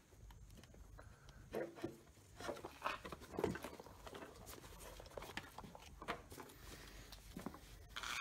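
Quiet handling noise at a workbench: scattered soft knocks and rustles as a power cord is plugged in and a rotary tool is picked up with gloved hands.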